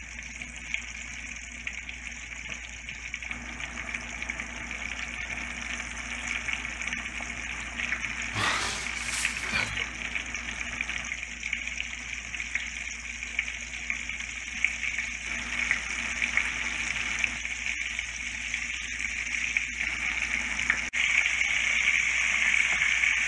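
Breaded tomato slices deep-frying in hot oil: a steady sizzle and bubbling. A brief louder noise comes about eight or nine seconds in, and the sizzle grows louder near the end as the slices are turned with tongs.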